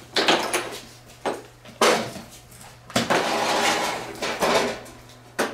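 Metal tools and parts clanking and rattling as someone works under the rear of a VW bus during an engine removal: several sharp clanks, then a longer rattling, scraping stretch.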